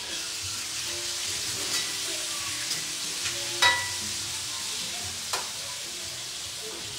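Food sizzling steadily in a sauté pan on a gas range while a metal utensil stirs it. A few sharp clinks of the utensil against the pan come through, the loudest ringing briefly about halfway through.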